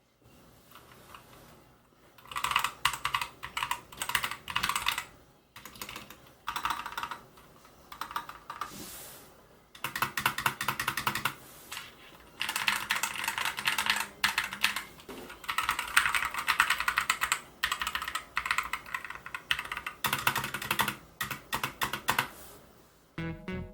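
Typing on a Corsair K60 PRO TKL keyboard with OPX optical linear switches: rapid key presses in bursts of a second or two, separated by short pauses.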